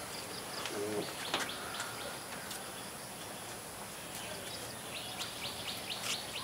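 Outdoor background with a bird chirping: a quick series of short, high chirps begins about five seconds in, over a few scattered faint clicks.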